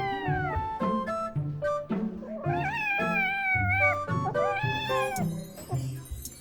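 A cat meowing three times over background music, the middle meow long and drawn out.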